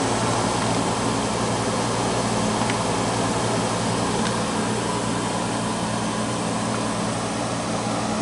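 1971 Montgomery Ward Signature series window air conditioner running steadily: its fan blowing with an even hum from the reciprocating compressor underneath, running smoothly after restoration.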